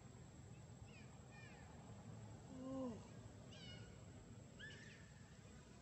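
A macaque gives a short call about halfway through, falling in pitch. Several faint high chirps come before and after it.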